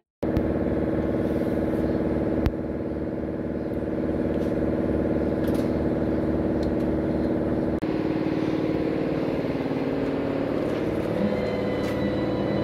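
An engine idling steadily, with a couple of sharp clicks on top.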